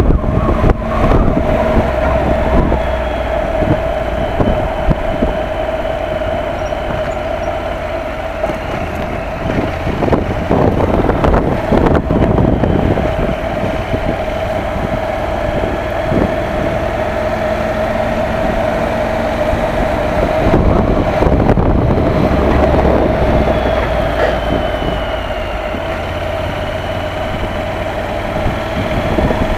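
Motorcycle cruising at steady speed: the engine runs with a constant hum under a heavy rush of wind buffeting the microphone.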